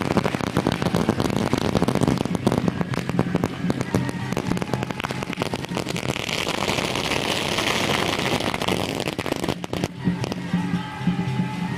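A long string of firecrackers going off in a rapid crackle of pops, over music with steady low tones. The popping thins out and stops about ten seconds in, leaving the music.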